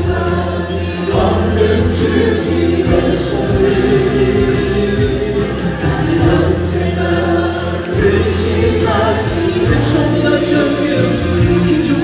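A choir singing a Christian gospel song over instrumental accompaniment with sustained bass notes.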